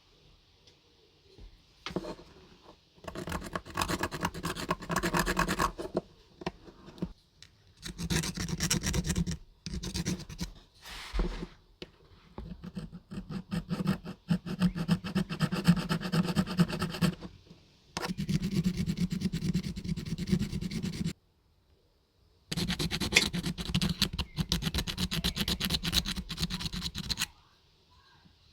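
Abrasive scraping on the metal diecast model car body, in runs of several seconds with short pauses between them.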